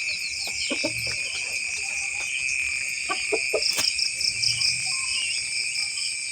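Night insects, crickets among them, chirping in a steady high-pitched chorus with a fast pulse, with scattered soft clicks and rustles beneath it.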